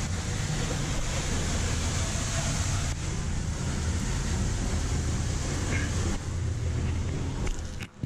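Steady roar of a nearby waterfall, water pouring down with a heavy low rumble and a bright hiss. It cuts off abruptly near the end.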